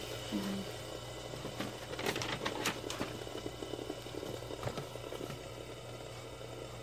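Sharpie marker writing: faint scratchy strokes with a cluster of small clicks and taps about two to three seconds in, over a steady low hum.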